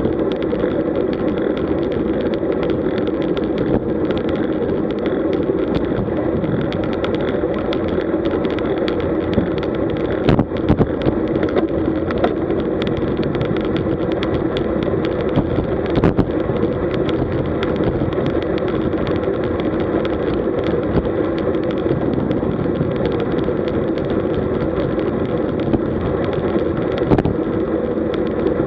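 Steady wind and tyre-on-road noise picked up by a camera riding on a road bike at about 40–50 km/h, with a few short sharp knocks.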